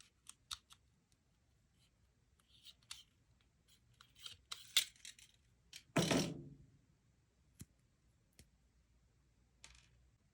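Small hand-work sounds: scattered sharp clicks and snips of small parts being handled, with one louder knock about six seconds in.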